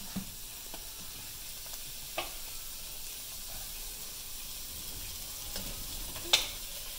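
The last of the vermouth cooking liquid sizzling steadily in a wok around the shrimp, with a few short knocks of a plastic slotted spatula against the pan, the loudest near the end.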